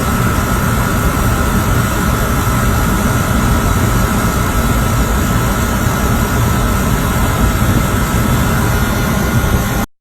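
A machine running loudly and steadily, with a constant high whine over a broad rumble and hiss. It starts and cuts off abruptly.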